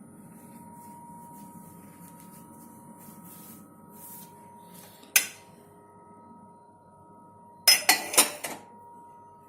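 Dishes and glassware clinking in a loaded dishwasher rack. There is one sharp click about five seconds in, then a quick cluster of loud clatters near the end.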